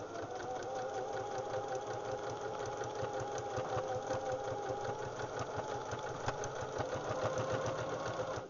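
Pfaff Hobby-series electric sewing machine running at steady speed, stitching through several layers of denim: a motor hum with a fast, even needle clatter. It starts with the window and stops abruptly at the end.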